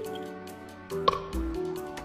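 Background music: a tune of held notes over a regular low bass beat, with one sharp click about a second in.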